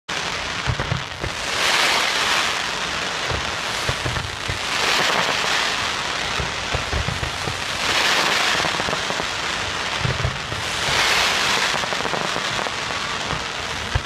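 A fireworks display: a dense rushing hiss of many rising sparkling comets and fountains that swells up four times, about every three seconds, with scattered dull thumps of launches underneath.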